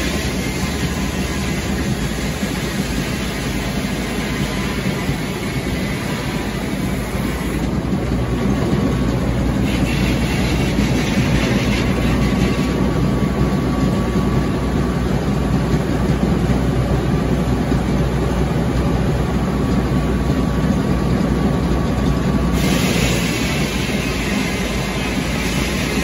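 Frick circular sawmill driven by a Caterpillar engine, running steadily with a deep engine hum while the saw works a log. From about eight seconds in until near the end it grows a little louder, with a faint steady whine.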